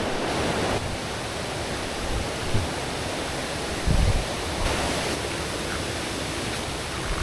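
Steady rush of flowing river water, with a brief low thump about four seconds in.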